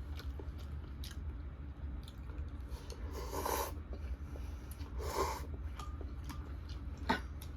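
Close-miked eating of ramen: chewing and wet mouth clicks, with two longer, louder slurps about three and five seconds in and a sharp click near the end, over a steady low hum.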